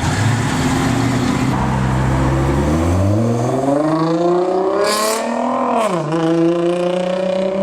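A performance car's engine pulling away hard. A low rumble at first, then the note climbs steadily as it accelerates, dips briefly at an upshift about six seconds in, and holds a high, steady note after it.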